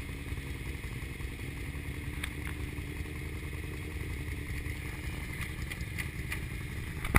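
A 2002 Yamaha R6 sportbike's inline-four engine idling steadily, with a few faint clicks.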